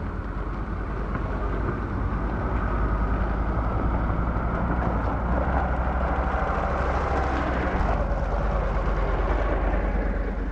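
Ducati Multistrada V4 Rally's V4 engine running steadily as the motorcycle rides over a rocky, slushy trail, with tyre and gravel noise mixed in.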